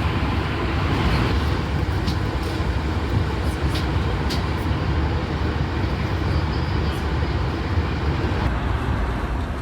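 Steady cabin noise of an Airbus A320 in flight: the engines and airflow rumble heard from inside the passenger cabin, with a few faint ticks.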